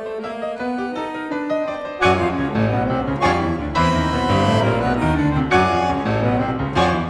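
Instrumental nuevo tango: a piano plays a sparse descending line of single notes, then about two seconds in the music turns suddenly louder and fuller, with sustained low notes and chords beneath the piano.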